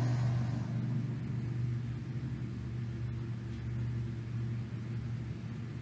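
A low, steady mechanical hum with an engine-like rumble that slowly fades.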